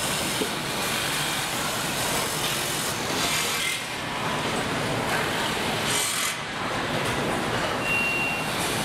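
Engine assembly line noise: a steady mechanical din with short hissing bursts and clatter from hand and pneumatic tools, and a brief high tone near the end.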